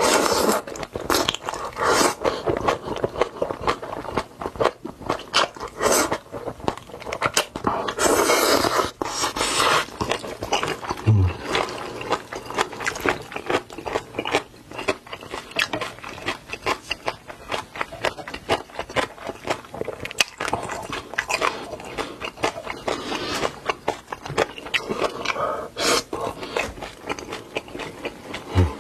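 Close-miked eating sounds: a person biting and chewing food, with crunching and dense, quick, moist clicks throughout and a few longer, louder noisy stretches.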